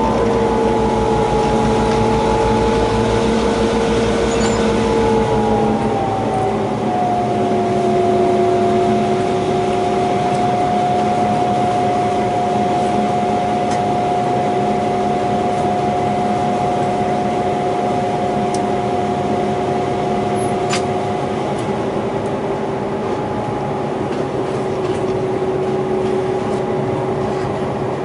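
Diesel locomotive engine running while hauling a heavy train: a steady drone with a low throb and a whining tone. About six seconds in, the whine drops in pitch and the throb eases, then both hold steady.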